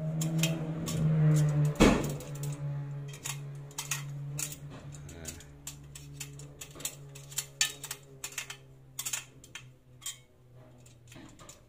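Spoke wrench clicking and ticking on the spoke nipples of a motorcycle spoked wheel as the spokes are tightened to true the rim, with a sharper metal knock about two seconds in. A steady low hum runs underneath.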